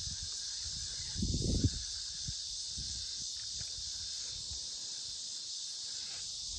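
Steady high-pitched drone of insects chirring in the summer vegetation along the creek, with a brief low rumble about a second in.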